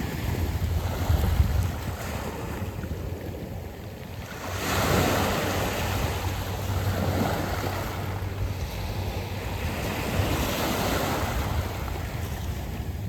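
Sea waves washing up a beach of round pebbles, a steady surf with two swells: a strong one about four and a half seconds in and another about ten seconds in.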